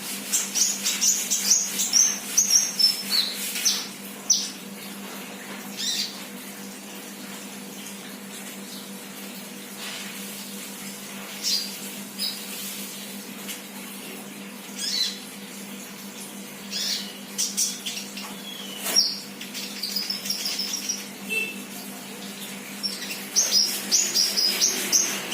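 A young sunbird (the bird sold in Indonesia as 'kolibri') chirping: runs of short, high, quick notes, thick for the first few seconds, then scattered single chirps, then busier again near the end. A steady low hum runs underneath.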